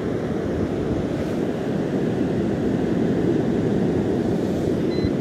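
Wind buffeting the microphone over the wash of surf, a steady rushing noise. Near the end, a brief electronic beep.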